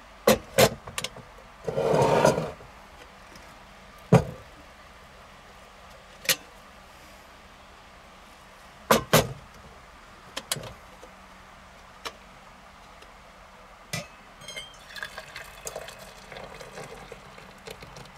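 Sharp metallic clinks and knocks of a camping kettle being lifted off a gas stove, set down on a wooden box and its handle and lid handled, with a short rushing swish about two seconds in. In the last few seconds, water trickles and splashes as it is poured from the kettle into a metal tumbler.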